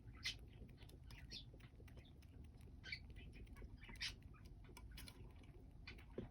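Faint, short chirps from small pet birds, about five a second or so apart, with light clicks and scratching between them.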